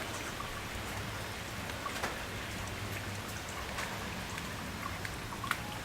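Steady rain falling, with a few scattered drops ticking sharply on a nearby surface.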